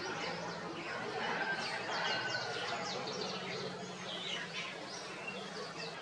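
Many small birds chirping together: a dense run of short, quick, falling chirps that overlap throughout, over a steady low hum.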